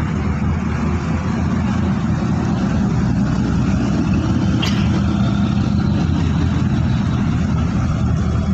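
A large engine running steadily with a low drone, and a single sharp click about four and a half seconds in.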